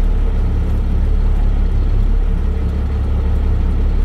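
Truck's diesel engine idling in gear, heard from inside the cab as a steady low drone while the truck backs slowly without throttle.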